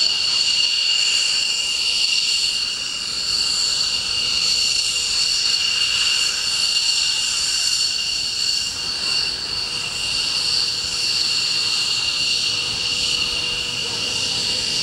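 F-15 Eagle fighter's jet engines running at taxi power, a steady high-pitched whine made of several shrill tones over a rushing noise.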